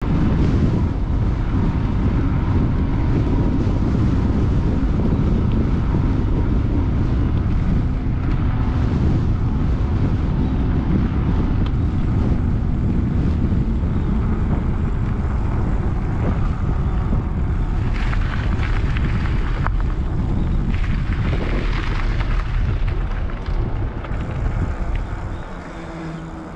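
Wind rushing over the microphone of a moving mountain bike, mixed with the hum of its knobby tyres rolling on asphalt. It eases near the end.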